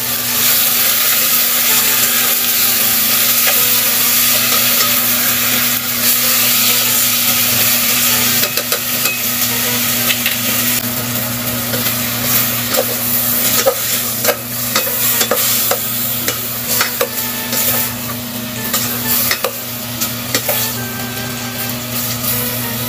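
Pork pieces sizzling in a stainless steel pot as a spatula stirs them, with the spatula scraping and clicking against the pot, more often in the second half. This is the sauté stage, before the water goes in.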